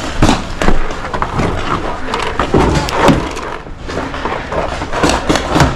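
Paintball game action: a scatter of sharp pops and knocks from markers firing and balls striking cover, over a steady rumble of wind and handling on the microphone.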